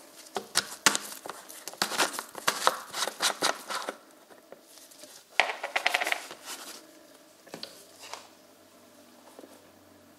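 Plastic engine-oil bottle's screw cap being twisted open by hands in nitrile gloves: a quick run of sharp clicks and crinkles for about four seconds, then a shorter cluster of crackles, and a few last clicks near the end.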